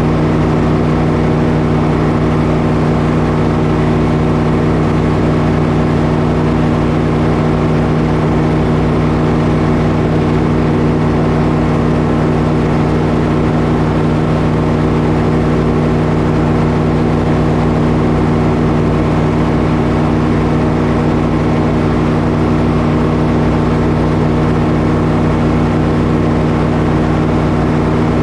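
Frick circular sawmill running at a steady, even speed, its big blade spinning free between cuts.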